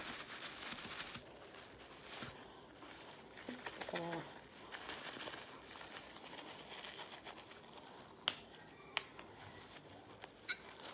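Plastic bag of flour crinkling and rustling as it is handled and opened over a bowl, with two sharp clicks a little after eight and nine seconds in, the first the loudest sound.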